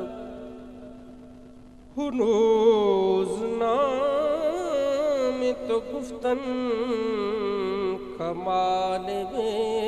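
A man singing a naat (devotional poem) solo into a microphone, in long ornamented lines that waver in pitch. A held note fades out over the first two seconds, then the singing starts again abruptly about two seconds in.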